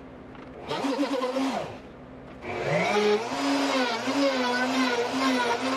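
Router motor of a homemade slot mortising machine, cutting quarter-inch slot mortises in plywood. It spins up briefly and winds down, then starts again and keeps running, its pitch wavering slightly as it cuts.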